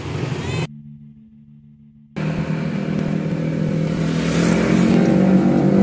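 Steady low hum of an engine running. It drops away abruptly under a second in and comes back about two seconds in, growing slightly louder toward the end.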